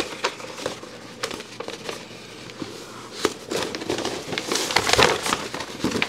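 Adhesive wrap and its backing paper crinkling and rustling as the sheet is pulled taut and pressed onto a fridge door, with scattered light clicks. It grows busier in the second half.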